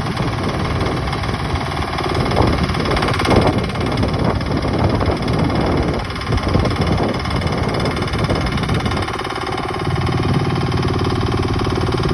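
Mini excavator's two-cylinder water-cooled diesel engine running, its level swelling and dipping, then settling to a steadier note about ten seconds in.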